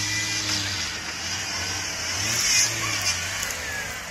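Engine of a lifted off-road 4x4 running under load as it crawls over rough dirt, with a brief rise in revs a little past halfway.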